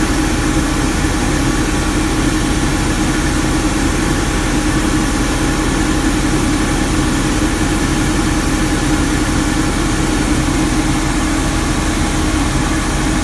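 Street sweeper's engine running steadily, heard from inside the cab, with an even hum and no change in speed.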